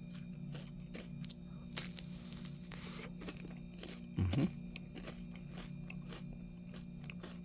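Chewing a bitten Nestlé Drumstick ice cream cone: the crisp sugar cone and its chocolate lining crunch in scattered bites over a steady low hum.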